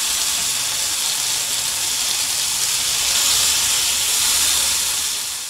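Masala-coated pomfret pieces frying in coconut oil in a nonstick pan, a steady sizzle as the pieces are turned over with a spatula. The sizzle fades out near the end.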